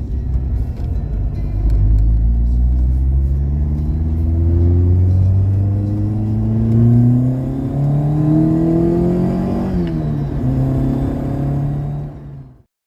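VW Mk2 Golf GTI 16v's four-cylinder engine accelerating hard, its pitch climbing steadily through a gear. About ten seconds in, the pitch drops at a gear change, then holds steady before fading out just before the end.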